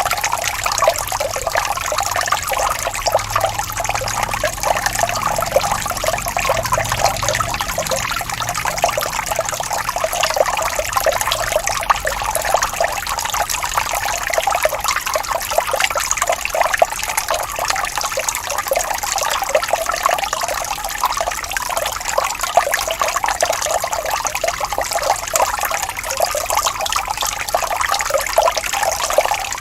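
A gently rippling stream of running water, trickling and burbling steadily with no deep rush.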